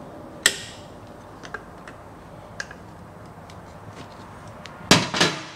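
Sharp metal clicks of pliers working the kick-start return spring into its hole in the engine case: one click about half a second in, a few light ticks, then a loud clatter of clicks near the end.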